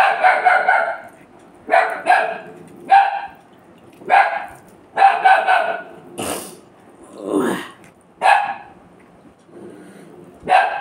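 A pet dog barking repeatedly, about ten sharp barks at uneven intervals. The dog is barking in alarm at a bird at the window.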